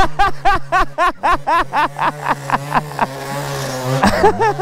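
A person laughing in a rapid run of short bursts, about four or five a second, over a dirt bike engine idling steadily. The laughing stops near the end.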